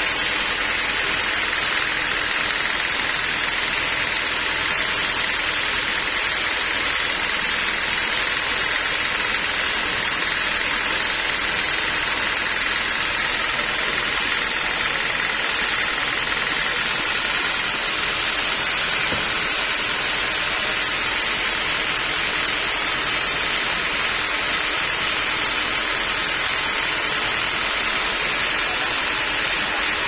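Band sawmill running steadily while no cut is under way: an even, unchanging mechanical whir.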